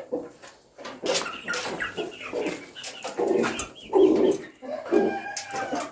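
Domestic pigeons cooing in repeated low calls, with scattered sharp clicks and knocks around them.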